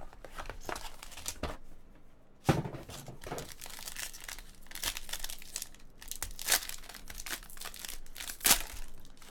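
Plastic trading-card pack wrapper crinkling and tearing as a pack of baseball cards is opened, a run of irregular crackles with sharper snaps about two and a half seconds in and near the end.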